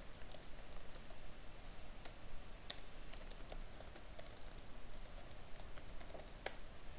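Typing on a computer keyboard: irregular, quick key clicks, a few of them louder than the rest.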